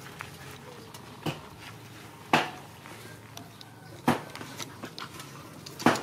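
Dogs play-fighting, with four short, sharp sounds from the scuffle at uneven intervals, the loudest near the middle and at the end.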